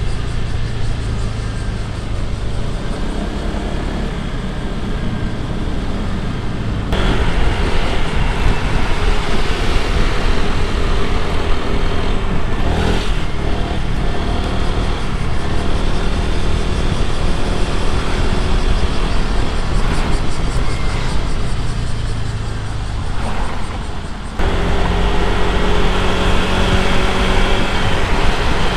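Honda PCX scooter's single-cylinder engine running while riding in road traffic, with steady road and wind noise. The sound jumps abruptly louder about 7 seconds in and changes again suddenly near the end.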